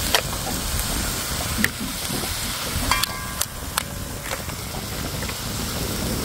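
Sharp clicks and knocks of a knife and crab shells against a metal cooking pot, about half a dozen, with the knock about three seconds in ringing briefly, over a steady rushing background noise.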